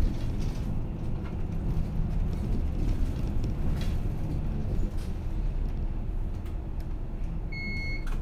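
Inside a moving city bus: steady low engine and road rumble with a few brief knocks and rattles. A short high electronic beep sounds near the end.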